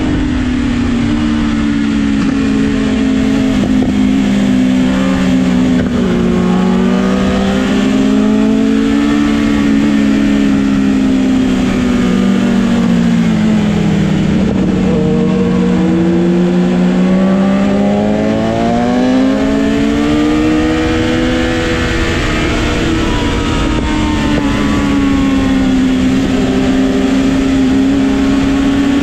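Sport motorcycle engine heard on board, its pitch slowly rising and falling as the rider accelerates and eases off through a run of curves, over a steady rush of wind noise.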